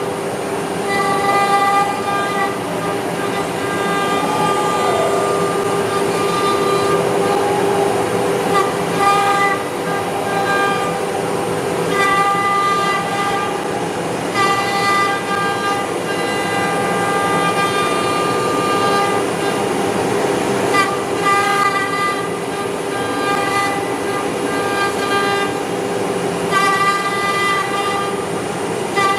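A CNC router's HSD auto-tool-change spindle runs with a steady pitched whine while routing. A second set of higher tones starts and stops every second or two.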